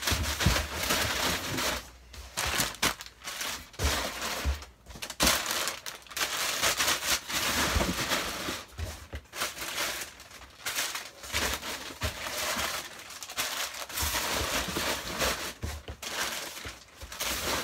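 Packing paper rustling and crinkling as paper-wrapped plastic Nerf guns are lowered into a cardboard box, in repeated bursts with occasional dull knocks against the box.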